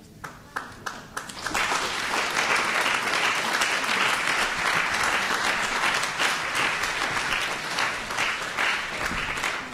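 Audience applauding: a few scattered claps at first, swelling into full, steady applause about a second and a half in.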